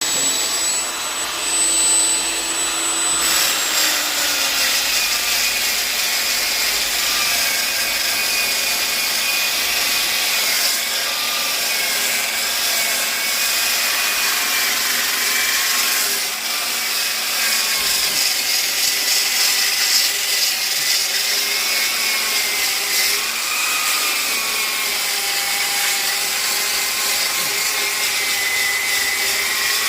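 Black & Decker electric polisher running with a sanding disc against ipê roxo wood, a steady motor whine over the hiss of abrasion. The whine wavers up and down in pitch throughout, with a change in the tone about three seconds in.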